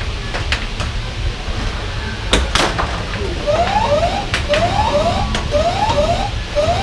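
Air hockey puck clacking irregularly off mallets and rails over the steady hum of the table's air blower. About three and a half seconds in, a looping electronic sound effect starts: quick rising chirps in pairs, about one pair a second.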